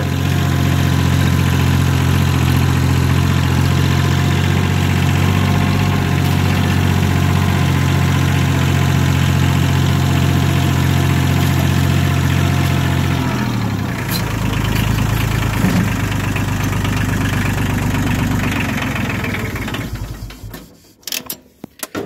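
Kubota compact tractor's diesel engine running steadily as it drives; about two-thirds of the way in the engine note drops, and near the end the engine stops.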